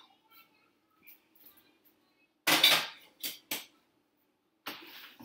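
A metal kettle being handled and set down on the stovetop: a short loud clatter and scrape about two and a half seconds in, then two sharp knocks, and a softer rattle near the end.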